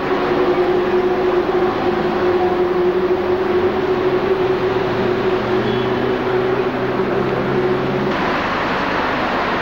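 A vehicle running at a steady speed: a steady drone with several held tones. About eight seconds in, the tones drop away, leaving an even rushing noise.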